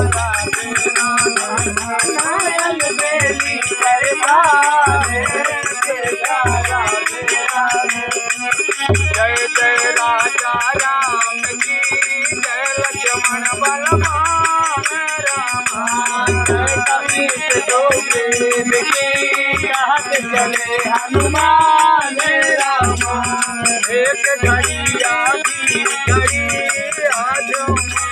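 Group singing a Hindi Ramayan bhajan to harmonium and dholak, with a steady jingling of hand percussion and a deep dholak stroke roughly every one and a half seconds.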